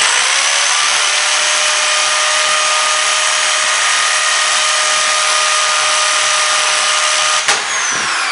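Power drill spinning a twist bit through a wooden slat: a loud, steady whine at a constant pitch. Near the end there is a sharp click, and the motor starts to spin down with a falling whine.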